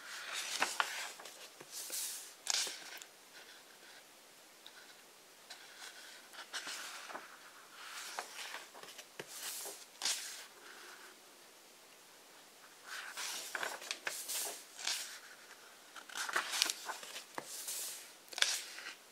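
Pages of a large hardcover book being turned one after another, paper rustling and swishing in short bursts several times, with hands brushing over the pages in between.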